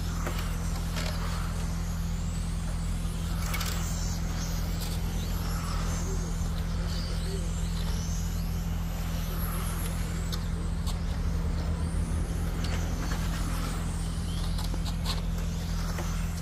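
Radio-controlled race cars lapping a track, their motors whining in high glides that rise and fall again and again as they accelerate, brake and pass. A steady low hum runs underneath.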